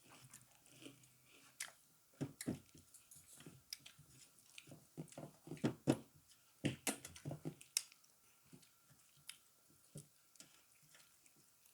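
A person chewing a rice meal close to the microphone, with wet smacks and clicks. These are busiest through the middle and thin out near the end.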